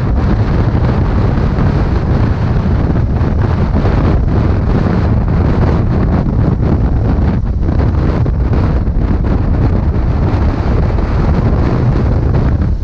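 Wind buffeting the microphone of a motorcycle moving at road speed: a loud, steady, low rumble.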